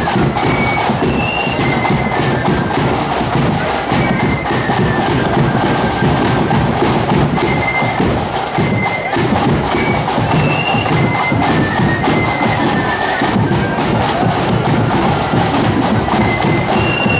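Marching flute band playing a tune: shrill flutes carry the melody over rapid snare drumming and a bass drum beat.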